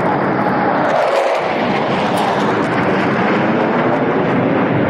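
Jet noise from a formation of MiG-31K interceptors, each with two Soloviev D-30F6 afterburning turbofans, passing overhead: a steady, loud rumble with no let-up.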